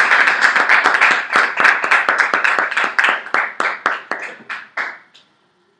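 A small audience applauding at the end of a talk: several people clapping briskly, the claps thinning out and stopping about five seconds in.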